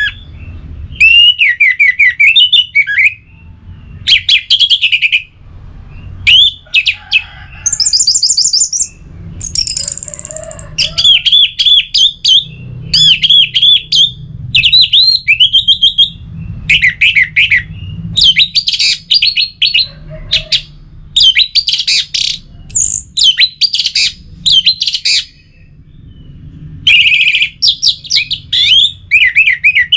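Orange-headed thrush singing: a run of loud, varied phrases of quick, sliding whistled notes, each phrase a second or two long with short pauses between them, some notes reaching very high.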